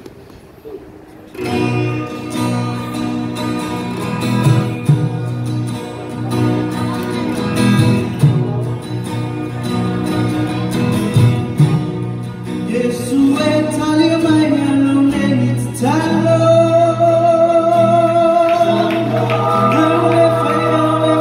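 Acoustic guitars strumming while a group of men sings in harmony, opening a song. The music comes in after about a second of quiet, and the singing grows louder about sixteen seconds in.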